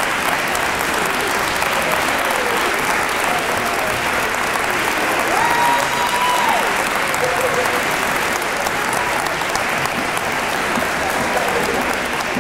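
Audience applauding steadily after a choir performance, with one drawn-out call rising over the clapping about halfway through.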